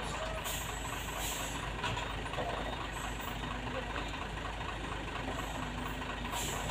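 Hino truck's diesel engine idling steadily, with a few brief hisses of air about half a second in, just over a second in, and near the end.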